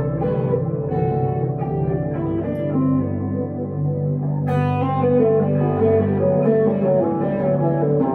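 Electric guitar, a 1962 Gibson Les Paul Custom through a Two-Rock Emerald Pro tube amp, playing a slow melodic line of picked, sustained notes over lasting lower tones, with a sharp picked note about four and a half seconds in.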